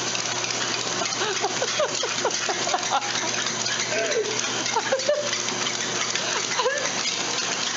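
Motorised treadmill running, a steady whir and hiss over a low hum, with a dog trotting on its belt. Short, high sliding sounds come and go over it throughout.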